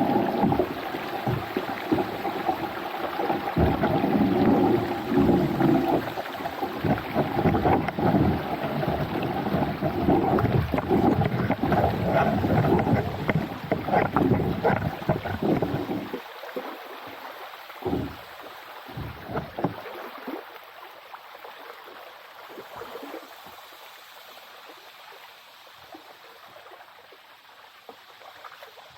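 Water splashing and sloshing around a kayak on a shallow creek, with frequent short strokes, until a little past halfway, when it drops away to a quiet stream trickle.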